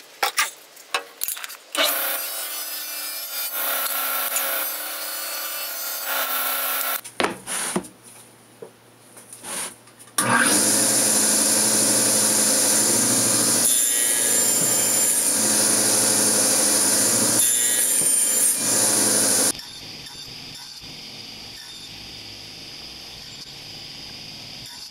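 Table saw cutting wood in short clips. A few knocks come first, then a cut from about two seconds in. From about ten seconds in the saw runs loud and steady with a low motor hum, stops abruptly near twenty seconds, and a quieter steady hum is left.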